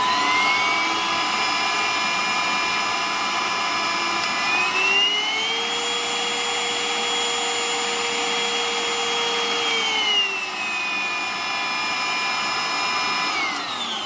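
Geek Glantoir cordless handheld vacuum cleaner running at normal speed with a steady high whine, then switched to turbo about four seconds in, the whine rising in pitch and holding. About ten seconds in it drops back to normal speed, and near the end it is switched off and the whine falls away as the motor winds down.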